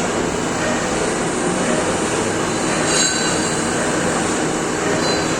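CNC machine running: a steady mechanical noise, with a brief high-pitched squeal about three seconds in.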